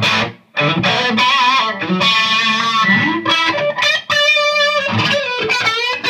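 Custom Stratocaster played through a Yerasov Bulldozer EL34 50-watt tube amp on an overdriven channel: a lead phrase of picked notes with string bends and vibrato, after a short gap just after the start.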